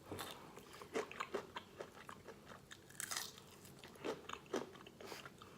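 Close-up eating of crispy fried chicken: the breading crunching under irregular bites, with chewing between them.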